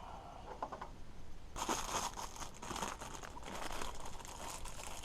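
Plastic packaging being crinkled and torn open: a dense run of crackling and rustling that starts about a second and a half in.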